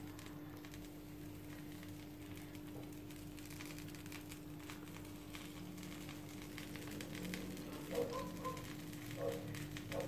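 Faint trickling and light crackle of sauce being poured from a plastic measuring cup over baked chicken in a glass baking dish, over a steady low hum. A few short faint tones come near the end.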